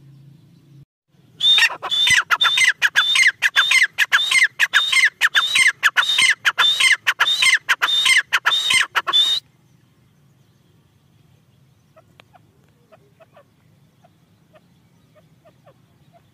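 Teetar (francolin) calling: a loud, fast run of sharp repeated calls, about two or three a second, that stops abruptly after some eight seconds. Faint small chirps follow near the end.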